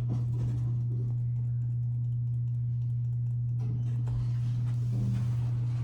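Steady low hum inside a Schindler-modernized elevator car, with a few faint clicks about three and a half to four seconds in.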